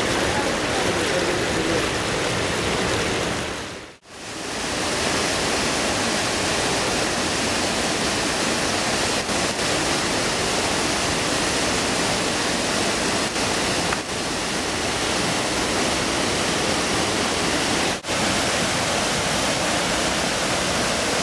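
Treated wastewater rushing and churning through the plant's outfall channel as it is discharged: a steady, loud rush of water. It fades out and back in briefly about four seconds in.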